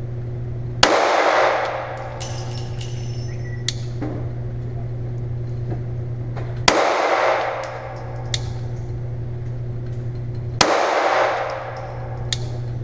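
Three single 9 mm pistol shots from a Glock 26, fired several seconds apart, each ringing out for about a second in the indoor range. Fainter sharp cracks fall between them, over a steady low hum.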